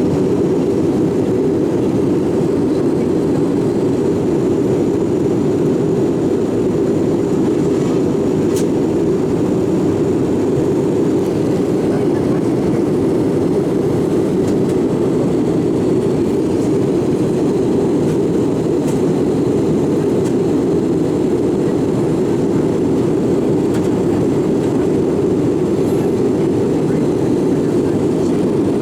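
Steady cabin noise inside an Airbus A319-112 airliner: an even, deep rumble of the CFM56 engines and airflow that holds at one level.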